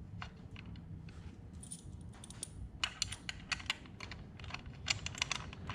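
Light, irregular metallic clicks and ticks of small hardware being handled while an air cleaner mounting bolt is started by hand, the clicks coming thicker in the second half.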